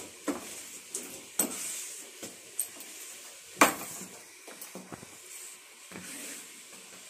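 A cloth wiping a wet granite countertop, a steady scrubbing hiss broken by several sharp knocks and clinks, the loudest about halfway through.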